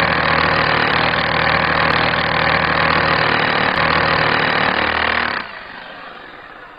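Power drill running steadily while driving a helical stainless-steel wall tie into a cavity wall. About five and a half seconds in the sound drops sharply and then fades away as the tie is seated.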